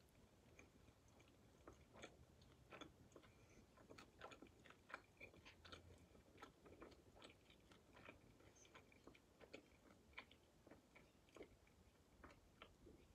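Faint chewing of BBQ chicken wings, with irregular small mouth clicks and smacks, a few each second.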